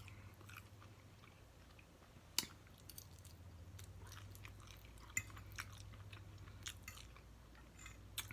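Close-miked chewing and mouth smacks of someone eating fried fish: scattered soft clicks and wet smacks, with one sharper click about two and a half seconds in. A faint steady low hum runs underneath.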